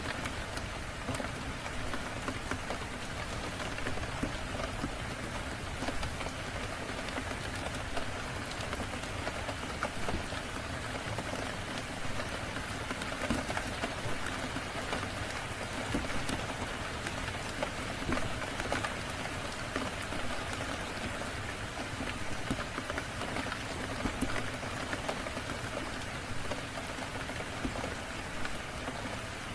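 Steady rain falling, a dense even hiss, with many scattered sharp ticks and pops from drops and the crackle of a burning fire.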